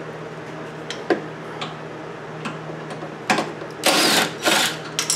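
Ratchet wrench with a 13 mm socket on a sway bar mounting bolt: a few light metal clicks and clinks, then the ratchet running in two quick rattling bursts about four seconds in as the bolt is loosened.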